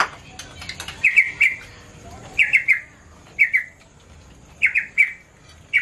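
A bird calling over and over, each call a quick run of three or four high notes, about once a second, with faint clinks of spoons on plates between the calls.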